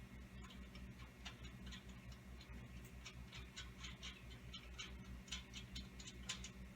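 Light metal clicks and taps at irregular intervals as flange bolts and nuts are handled and threaded by hand onto a circulator pump, over a steady low hum.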